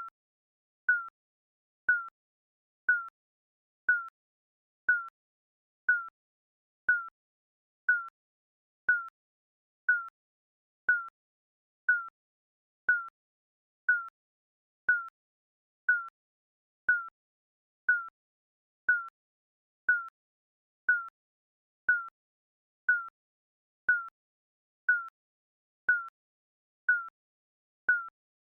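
Digital countdown timer beeping: a short, high electronic beep at one steady pitch, once every second, marking each second of the countdown.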